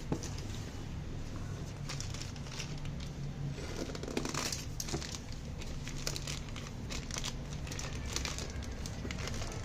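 Parcel packaging crinkling and rustling as it is handled and opened, with irregular small clicks and a louder rustle about four seconds in.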